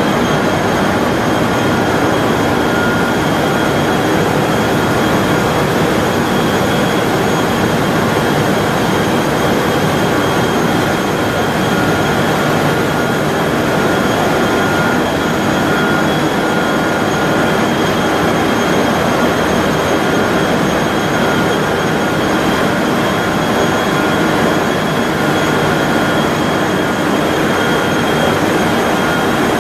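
3200 mm copy-paper machine running at its wet end: a loud, steady mechanical roar with several thin, steady high whines over it.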